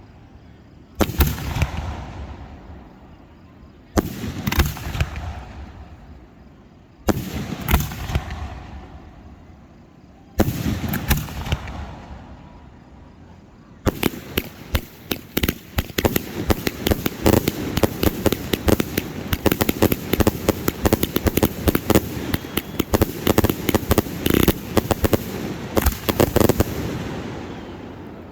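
Fireworks display: four aerial shells burst one after another about three seconds apart, each boom trailing off into crackle. About halfway in, a dense, rapid barrage of bangs and crackling starts and keeps going.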